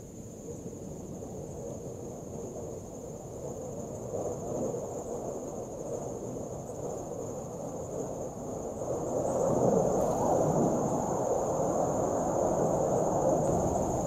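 Outdoor ambience: a steady high-pitched insect-like drone, over a rushing noise that grows louder in the second half.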